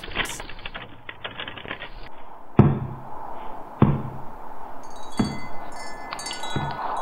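Chimes ringing, with a struck note about every second and a half. A high tinkling layer of chime tones joins in a little past halfway.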